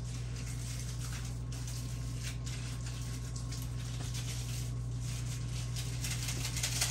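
Kitchen room tone: a steady low electrical hum, with faint irregular rustling and crackling over it and a few light clicks near the end.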